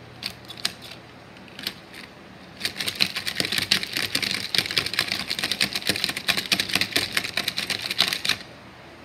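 Small plastic toy figures clacking and knocking together in a quick, irregular clatter for about six seconds as they are made to fight, after a few single clicks at the start.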